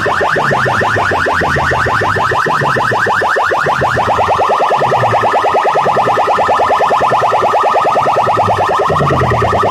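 Loud electronic chirping effect played through DJ sound-box loudspeakers: a fast, unbroken train of short rising chirps over a low bass pulse that repeats about once a second.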